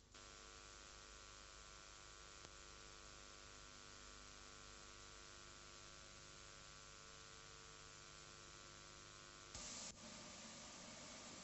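Near silence: a faint steady electrical hum under hiss, which gives way to a brief louder hiss near the end.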